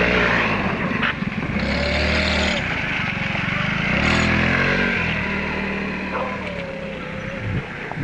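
A motor vehicle engine running, its pitch rising and falling several times.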